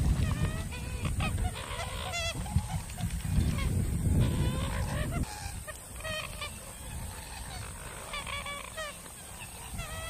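Marsh birds calling repeatedly: short calls that rise and fall in pitch, busiest in the first half and again near the end. A low rumble runs under the calls and drops away about five seconds in.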